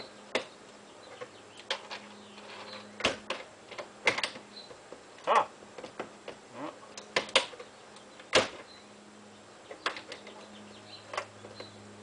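Irregular sharp metal clicks and knocks from a slide-action baggage-door lock being worked on a 1957 Shasta trailer, with the door pressed against its frame. The latch is not catching and the door won't close all the way.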